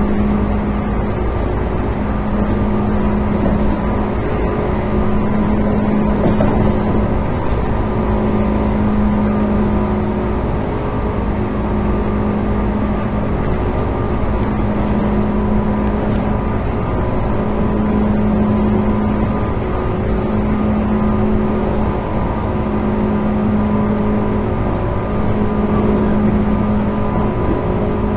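Tobu 9000 series chopper-controlled electric train car heard from inside the cabin, running steadily with a low rumble and a hum that comes and goes about every two seconds.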